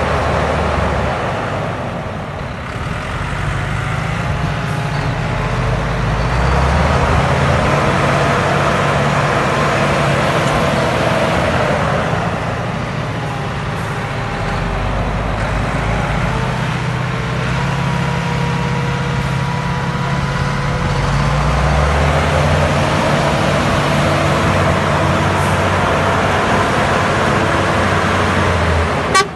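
Heavy diesel engines of a bogged-down, hay-laden Volvo FH truck and the tractor towing it, running hard under load, their revs rising and falling several times as the truck is dragged out of the mud. A brief sharp click near the end.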